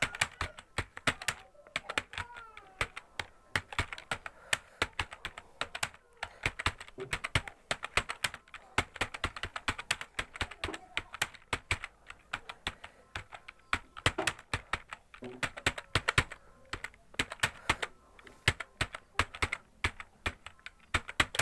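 Fast touch-typing on a computer keyboard: a quick, irregular stream of key clicks with a few brief pauses, as in a timed English typing speed test.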